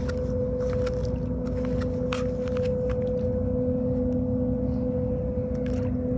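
A steady machine hum, a low rumble with a constant droning tone, under light irregular clicking footsteps of plastic clogs on a rough concrete breakwater.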